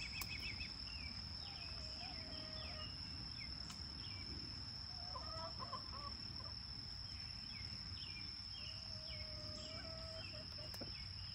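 Hens giving low, drawn-out wavering calls, twice, over a steady high-pitched insect drone and scattered short bird chirps.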